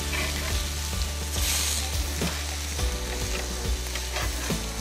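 Beef patties sizzling on a hot cast-iron grill pan, a steady frying hiss, as a metal spatula shifts them.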